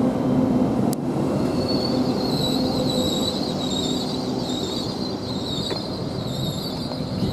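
Train running through the station with a steady rumble, its wheels setting up a high, wavering squeal about a second and a half in. A single sharp click comes about a second in.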